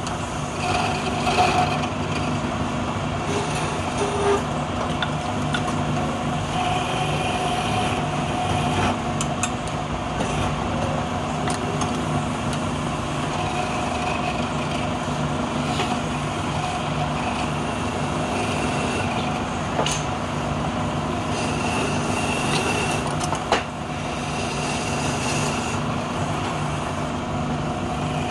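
Wood lathe motor running with a steady hum while a hand-held scraper cuts a spinning palm-wood spindle, the scraping rising and falling as the tool is worked against the wood, with a few sharp ticks.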